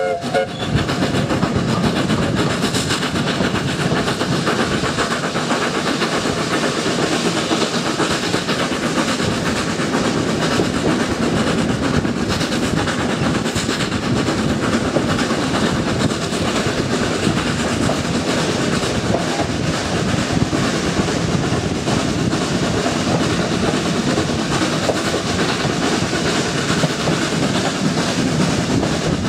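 Steady running noise of a steam-hauled heritage train carriage rolling along the track: wheels rumbling and clattering on the rails, heard from the carriage window.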